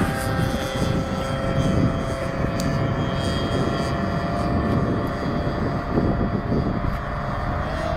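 Radio-controlled offshore powerboat running flat out across the water, its motor a steady high whine; the pitch rises slightly near the end.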